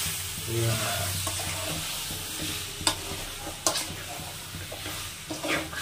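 Raw mutton pieces being stirred into onion-and-spice masala in an aluminium kadhai with a metal spoon: a steady frying sizzle, with the spoon scraping and twice knocking sharply against the pan near the middle.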